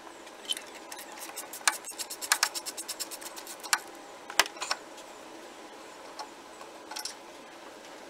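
A socket ratchet clicks in a fast, even run for about two seconds as the 17 mm mounting bolts of a 1996 Ford F-150's power steering pump are backed out. A few separate metallic clicks and knocks follow.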